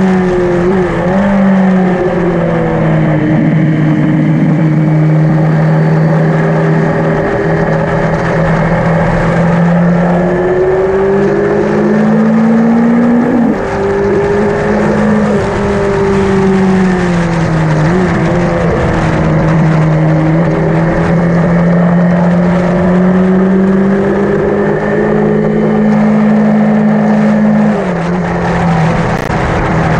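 Yamaha XJ900N's air-cooled inline-four engine running hard on a circuit, its revs rising and falling repeatedly through acceleration and gear changes, with a sharp drop in pitch about 13 seconds in and another near the end.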